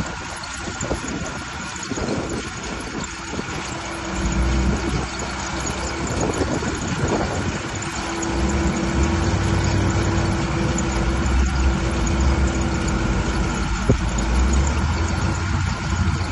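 Small 504 tractor's diesel engine running steadily under load, growing louder with a stronger low hum about four seconds in and again around eight seconds in.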